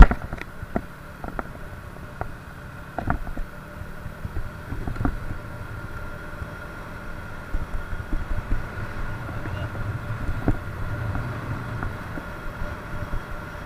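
Moped engine running steadily on the road, with a low rumble and a steady whine, and scattered knocks and rattles from road bumps. A sharp knock right at the start, the loudest sound, as a hand touches the action camera.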